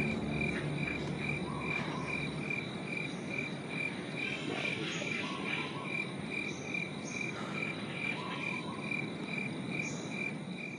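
Chorus of frogs and insects calling: a steady high trill with a regular chirp pulsing about twice a second.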